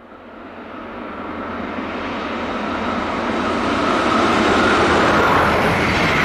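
Electric passenger train, a red DB Class 101 locomotive hauling Swiss SBB coaches, approaching and passing at speed: a rush of wheels on rail that grows steadily louder over about four seconds and stays loud as the coaches go by, with a faint high whine on top.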